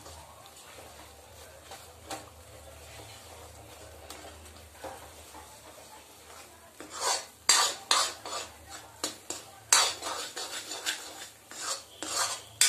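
Metal spatula scraping and clattering against a metal kadhai while milk cake is stirred and mashed as it roasts. The first half is faint; from about halfway a quick run of loud scrapes and knocks starts.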